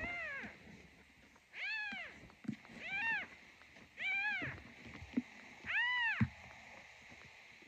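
Newborn kitten mewing: five high-pitched cries, each rising then falling in pitch and lasting about half a second, spaced a second or so apart. A few faint knocks from the kitten being handled in a plastic box come between the cries.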